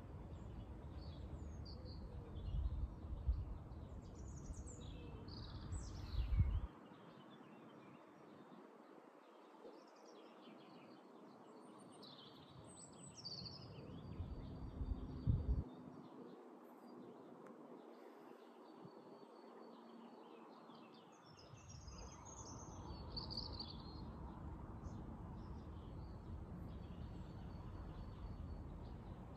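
Songbirds chirping and trilling on and off over an outdoor ambience, with a low rumbling noise underneath that comes and goes, swelling in short surges in the first few seconds and again midway.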